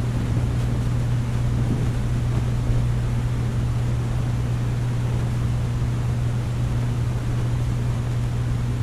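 Aquarium pump running: a steady low hum under a constant hiss of water and bubbles.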